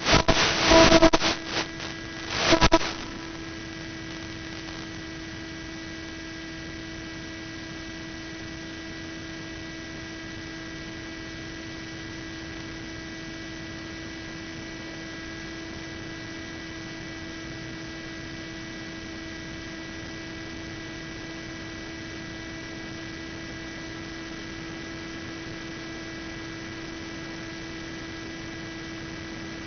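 Steady electrical hum made of several fixed tones, the buzz of an analogue FPV video link's audio channel. Loud crackles of static break in during the first three seconds.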